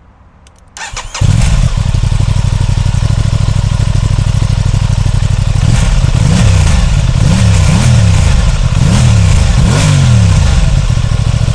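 Aprilia Tuono 660's parallel-twin engine starting about a second in and running steadily through its exhaust, which splits underneath into left and right outlets. In the second half it is revved up and down in about five quick throttle blips.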